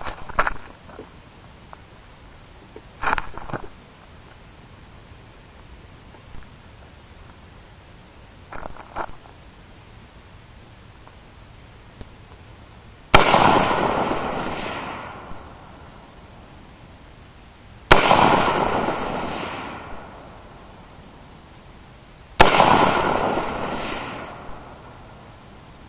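Three single shots from an M-16A3 rifle firing 5.56×45mm ammunition, spaced about five seconds apart, each a sharp crack followed by an echo fading over two to three seconds. A few quieter knocks come in the first nine seconds.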